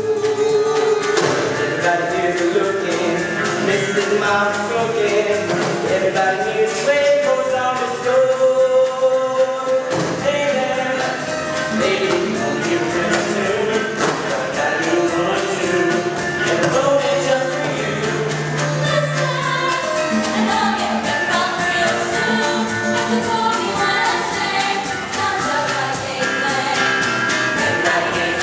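Stage-musical chorus of men and women singing a country-style show tune together over backing music.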